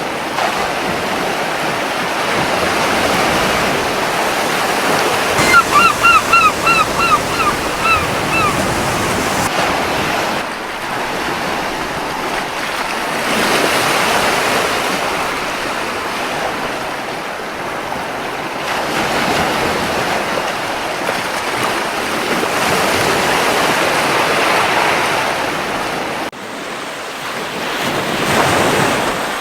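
Gentle ocean waves washing onto a beach, swelling and easing every few seconds. About five seconds in, a gull gives a quick run of about nine short calls lasting some three seconds.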